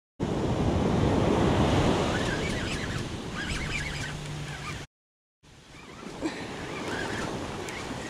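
Surf washing onto the beach with wind buffeting the microphone; the sound drops out to silence briefly at the very start and again for about half a second around five seconds in.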